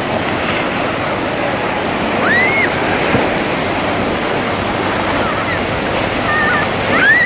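Waves and surf churning in a choppy harbour channel: a steady rushing noise.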